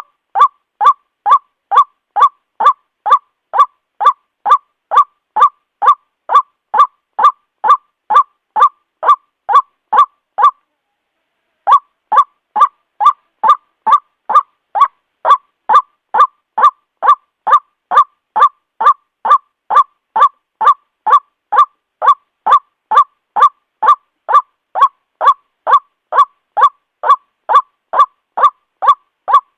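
White-breasted waterhen call played as a lure recording: a loud honking 'kwak' repeated about twice a second, with a break of about a second near the middle.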